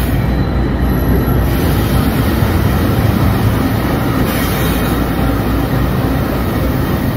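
Diesel freight locomotives passing close by, a loud, steady rumble of engines and rolling wheels.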